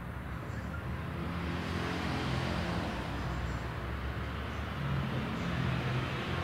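A motor vehicle's engine running, growing louder over the first two seconds and then holding steady.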